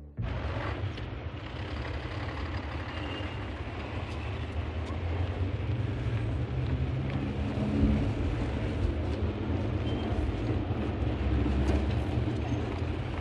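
A steady low rumble with a hiss over it and a few faint clicks.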